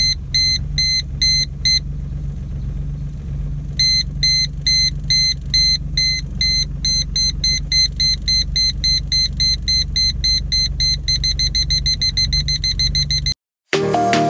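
Reverse parking sensor buzzer beeping over the car's idling engine, about three beeps a second at first. After a short pause the beeps resume and come faster and faster until nearly continuous as the car gets closer to the obstacle behind it. The sound cuts off abruptly near the end and music begins.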